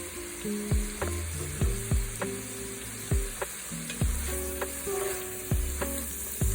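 Background music with a steady kick-drum beat and held bass and synth notes, over food sizzling in a hot buttered pan.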